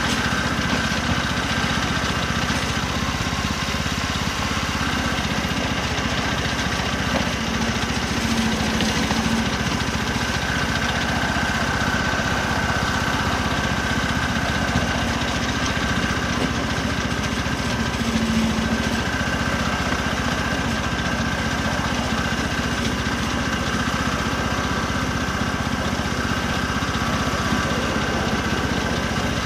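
Small engine of a 7¼-inch gauge miniature locomotive built to look like a BR Class 03 diesel shunter, running steadily as the loco travels along the track, with a constant high whine over the engine note.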